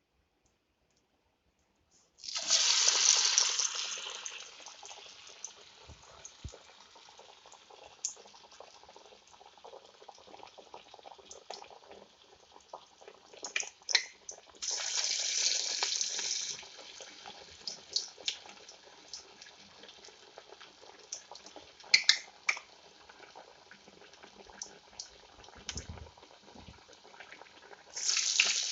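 Parippu vada (chana dal fritters) deep-frying in hot oil. A loud burst of sizzling starts about two seconds in as fresh vadas go into the oil and settles into a steady, quieter sizzle with scattered crackles and pops. Further loud bursts of sizzling come in the middle and near the end.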